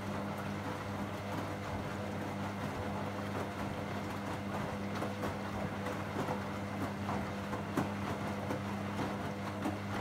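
Beko WM5122S front-loading washing machine tumbling wet curtains during its rinse: a steady motor hum from the turning drum, with water sloshing and the wet fabric slapping and splashing as it drops.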